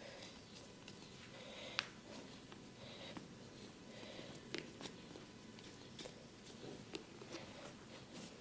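Hands massaging skin, heard close up: soft rubbing with scattered small clicks and taps, one sharper click about two seconds in.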